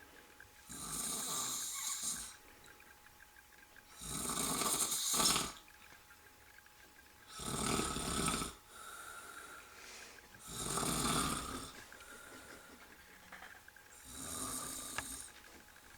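A middle-aged man snoring in his sleep after a night of heavy drinking. There are five snores, each about a second and a half long, in a regular rhythm about every three seconds.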